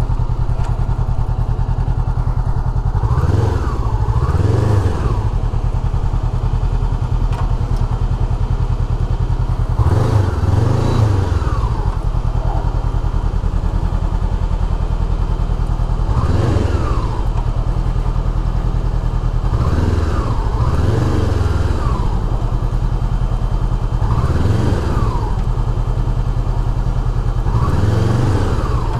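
Honda sport bike engine idling, with short throttle blips every few seconds that rise and fall in pitch, several of them in quick pairs.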